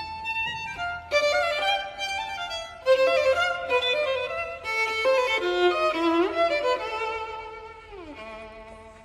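Instrumental background music: a melody of held, wavering notes that slides down and fades near the end.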